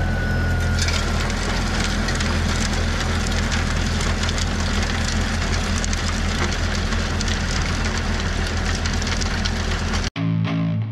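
Compact tractor engine running steadily under load while its rear-mounted rotary tiller churns the soil, with a dense crackle of many small clicks setting in about a second in. Cuts off suddenly to guitar music near the end.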